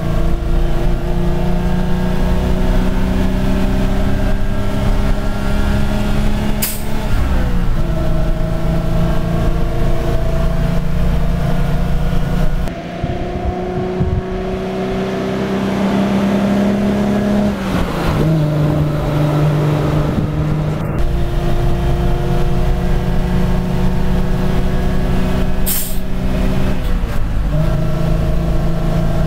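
Foden Mk 6 two-stroke diesel engine of a 1967 Foden S21 eight-wheeler lorry, heard from inside the cab, pulling on the road: its note climbs steadily and then drops at each of three gear changes, about 7, 18 and 27 seconds in. Two brief sharp noises come just before the first and last changes.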